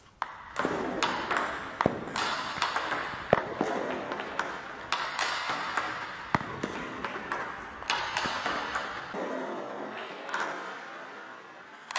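Table tennis counter-loop rally: sharp, irregularly spaced clicks of the celluloid-type ball off the Dignics 80 rubber-faced bats and bouncing on the table, at times several a second.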